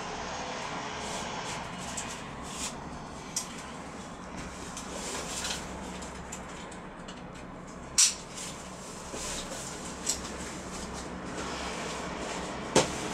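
A canvas waist bag being fastened around the waist and its strap tightened: a few scattered sharp clicks and taps, the loudest about eight seconds in and again near the end, over a steady background hum.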